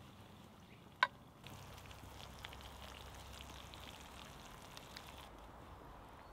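A sharp clink about a second in, then faint pattering and crackling as thick port sauce is poured from a pan onto a plate of roast pigeon.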